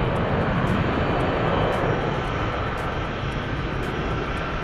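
Jet airliner engines as aircraft taxi past: a steady, broad rush of engine noise that eases slightly in the second half.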